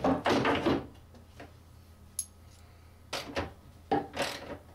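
Wrench and bolt hardware knocking and scraping against a pine storage cabinet as nylon lock nuts are tightened onto the bolts joining the two units. A burst of handling at the start, a small metallic clink about two seconds in, then a few louder knocks and scrapes near the end.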